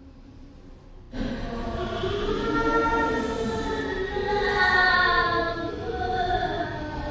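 Eerie horror sound effect: a choir-like chorus of children's voices enters suddenly about a second in, holding and slowly bending many layered pitches over a low rumble.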